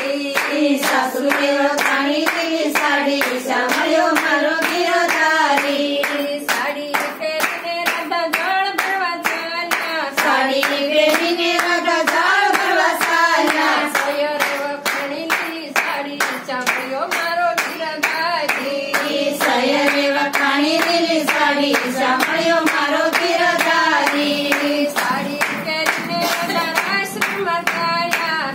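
A group of women singing a Gujarati bhajan (devotional song) together, clapping their hands in a steady rhythm.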